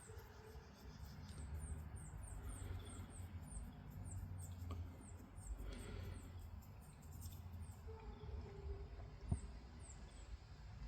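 Faint, rapid series of short, very high squeaky chirps, each falling in pitch, about four a second. They stop after several seconds and return briefly near the end. Under them is a low rumbling hum, and there is a single click about nine seconds in.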